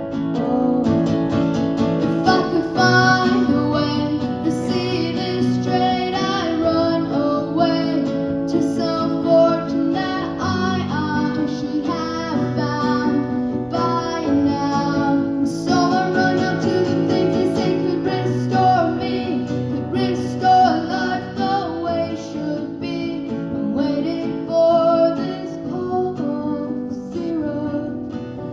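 Acoustic guitar strummed in a steady rhythm, with a melody line wavering above it in a wordless instrumental passage of the song.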